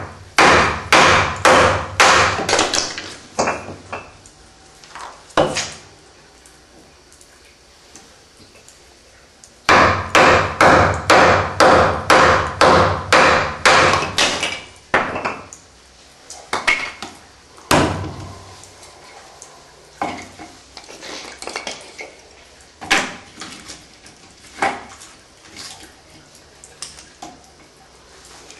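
A wooden baton striking the spine of a Fox Trakker kukri-style knife, driving the blade down through a log on a chopping block. The knocks come in two quick runs of about two to three strikes a second, then fewer, scattered knocks, one heavier near the middle.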